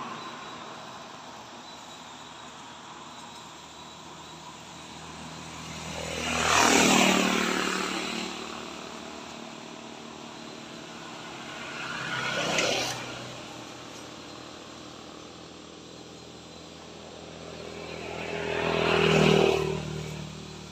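Three road vehicles passing one after another on a nearby road, each swelling and fading away with a falling pitch, about six, twelve and nineteen seconds in, over a steady low background hum.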